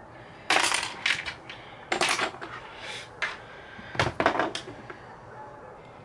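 Makeup products and their plastic cases clicking and clattering as they are picked up and set down, in about four short bursts.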